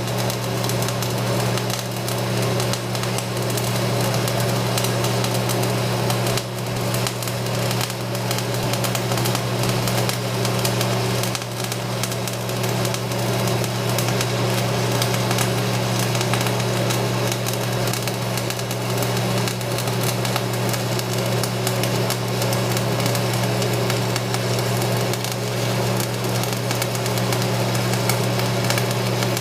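Stick-welding arc of an Excalibur 7018 rod fed by a Lincoln AC/DC 225/125 "tombstone" buzzbox welder, held at a tight, short arc: a steady buzz under continuous crackling.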